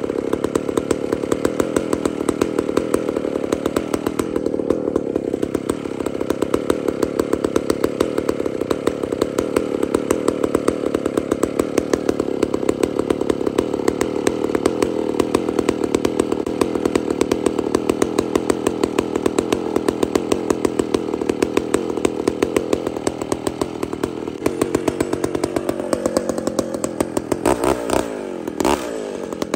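McCulloch Super Pro 125, a big-displacement two-stroke chainsaw, idling steadily with an even firing beat. Near the end it is revved up and down a couple of times.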